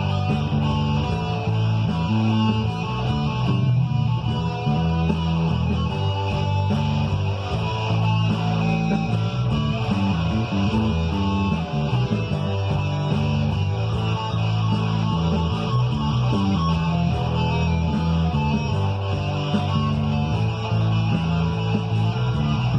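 Electric guitar played over a rock backing track with bass and a steady drum beat.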